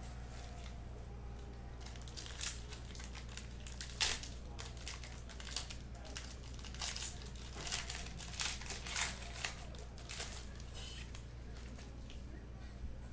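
Plastic wrap and a foil trading-card pack being crinkled and torn open by hand: irregular crackles and rips, the sharpest about four seconds in and a busy run of them in the middle.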